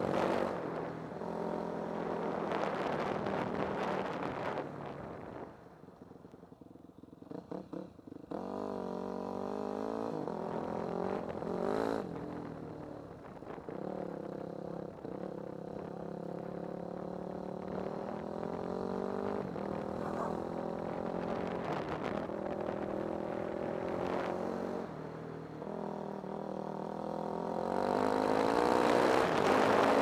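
Off-road vehicle engine running under changing throttle, its pitch rising and falling as it climbs the trail. About six seconds in it drops back nearly to idle for a couple of seconds, then picks up again and revs harder near the end.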